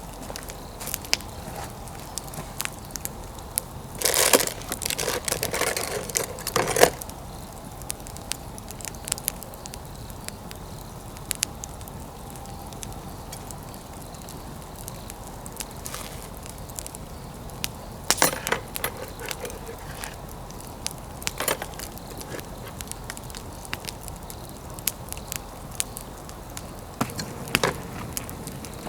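Pine-wood fire crackling, with scattered pops and snaps throughout. There are a few louder noisy bursts, the longest about four to seven seconds in.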